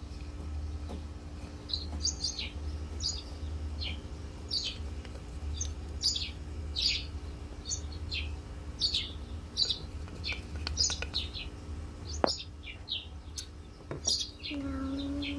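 Small songbirds chirping: a run of short, high chirps, one or two a second, over a steady low hum.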